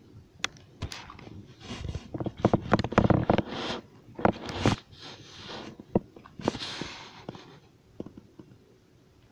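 Close-up rustling, rubbing and knocking as the phone brushes against a dog's coat and the blanket, with a run of sharp clicks and a low rumble, loudest about two to five seconds in, and a brief hiss near seven seconds.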